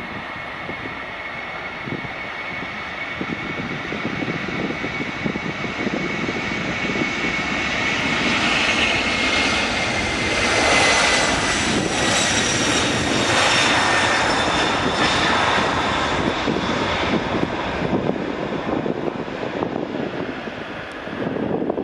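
Four-engined Boeing 747-400 on its takeoff roll at takeoff thrust: a continuous jet roar with a high fan whine that slides slightly down in pitch as the aircraft passes, swelling to its loudest in the middle and easing off near the end.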